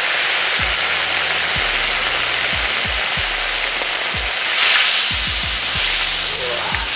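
Beans and vegetables sizzling steadily in hot oil and liquid in a steel saj pan over a wood fire. A spatula stirs through them from about four seconds in, briefly louder.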